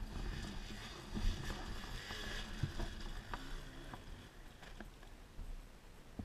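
Scattered light knocks and crunches of movement over dry, rocky ground littered with sticks, picked up by a helmet-mounted camera, over a steady low rumble.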